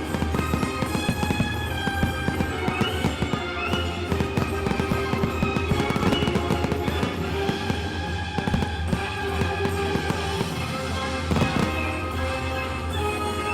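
Fireworks display: many quick bangs and crackles of exploding fireworks over music playing throughout.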